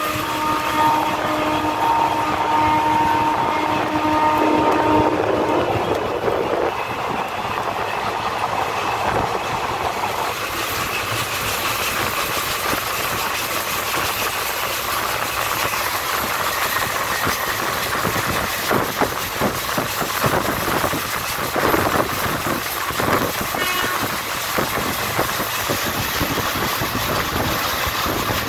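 Express passenger train running at speed, heard from an open coach door: a locomotive horn sounds a held chord that ends about five seconds in, over the steady rumble of wheels on rail. In the second half the wheels clack over rail joints.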